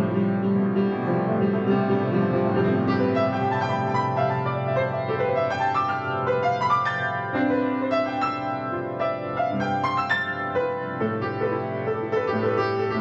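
Instrumental piano music, many notes overlapping.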